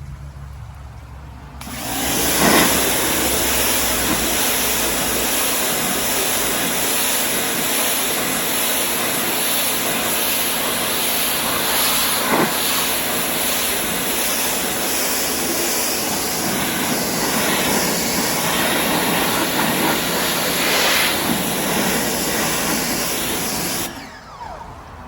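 Ryobi 1600 PSI electric pressure washer spraying a high-pressure jet of water, a loud steady hiss that starts about two seconds in and cuts off near the end.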